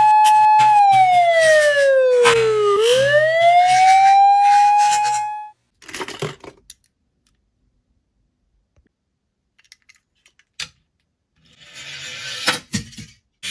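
Toy police car's electronic siren wailing: a steady tone that slides down in pitch and back up, then stops abruptly about five seconds in, over small plastic clicks and knocks. Afterwards there are only scattered clicks, a brief rushing noise near the end, and a few sharp clicks.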